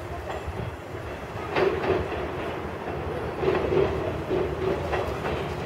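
JR 107 series electric train pulling slowly into the station, its wheels clacking irregularly over the points and rail joints under a steady rumble.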